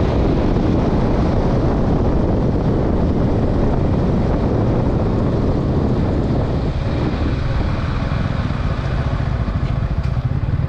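Yamaha R15 V4 motorcycle's 155 cc single-cylinder engine running at speed under heavy wind rush on the microphone. The wind noise eases in the second half.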